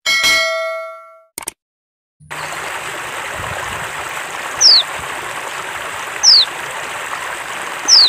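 A bright chime rings and fades over the first second, followed by a short click. From about two seconds in, a steady rush of running water, over which a female white-eye (pleci) gives three short, high call notes, each sliding downward, about every second and a half.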